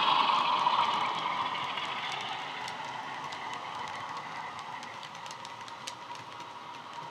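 Class 47 diesel engine sound from a Hornby HM7000 sound decoder, played through a model locomotive's small speaker, fading steadily as the locomotive runs past and away. Light scattered clicks from the model wagons' wheels on the track come through in the middle.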